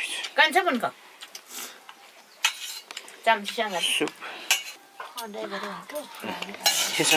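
Metal spoons clinking and scraping on metal plates as people eat rice, with short bits of voices in between.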